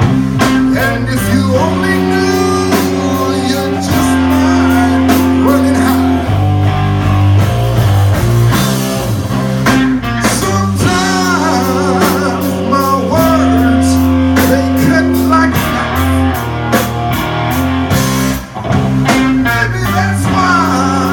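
A live rock-funk band playing loudly: bass guitar holding steady low notes, drums keeping a beat, electric guitar, and a voice singing over them.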